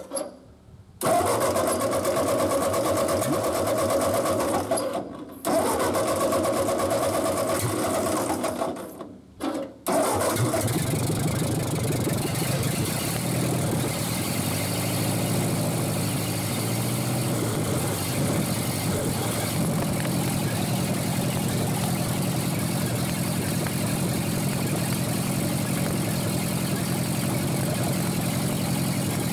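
Ford 8N tractor's four-cylinder flathead gasoline engine starting and running on fuel squirted by hand into a gummed-up carburetor, its first run after seven years sitting. It breaks off abruptly three times in the first ten seconds, then runs steadily.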